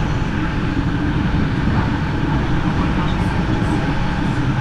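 SBB InterRegio passenger train running along the line, a steady rumble heard from inside the carriage.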